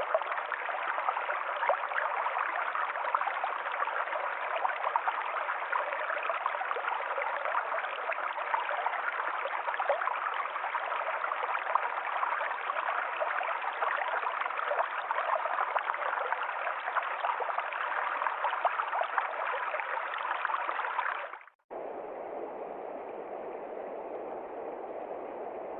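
Forest stream flowing, a steady babble of running water. About 21 seconds in it cuts off abruptly to a different, quieter and lower steady rushing noise.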